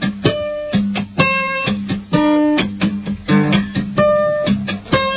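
Acoustic guitar playing, a mix of picked single notes and strummed chords in a steady rhythm, heard off an FM radio broadcast recording.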